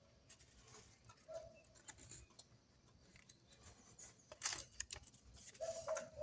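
A sheet of paper being folded in half and pressed flat by hand on a wooden table: faint rustling and scraping, with a louder crinkle about four and a half seconds in.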